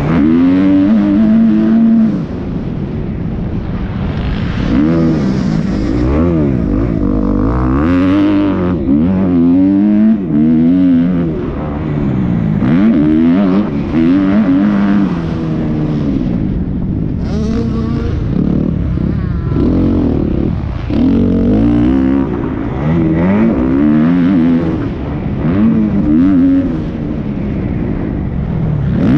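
Motocross dirt bike engine being ridden hard round a track, revving up and dropping back again and again as the rider works the throttle and gears, its pitch rising and falling every second or two.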